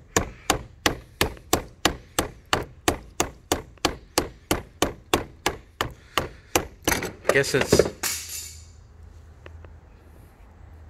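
The plastic handle butt of a screwdriver striking a corroded battery terminal clamp on its post, about three even knocks a second, ending in a louder flurry of blows. The clamp is stuck and will not open or seat.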